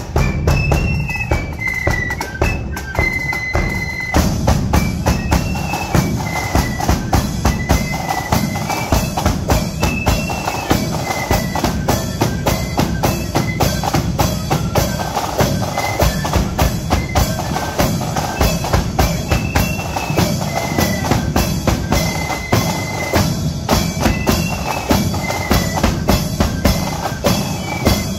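Marching flute band playing: flutes carry a shrill melody over a steady march beat of bass drum, cymbals and rapid drumming.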